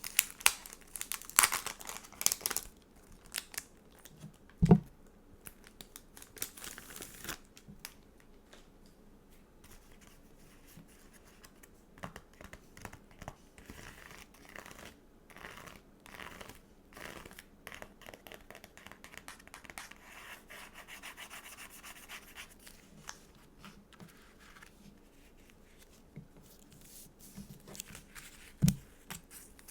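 Stickers and sticker sheets being handled close to the microphone: crinkling, rubbing and peeling sounds. There are two soft knocks, one about five seconds in and one near the end.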